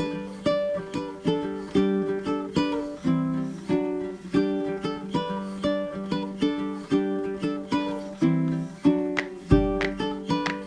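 Background music: a plucked string instrument picking a quick, repeating melody of short notes, with a deep bass note coming in near the end.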